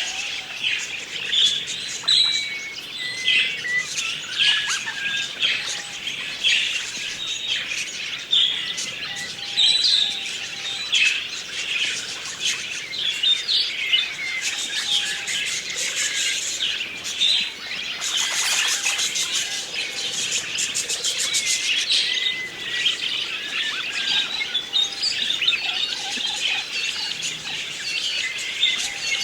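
A flock of budgerigars chattering and chirping without pause, many short warbled calls overlapping. About eighteen seconds in, a few seconds of faster, buzzier chatter rise over the rest.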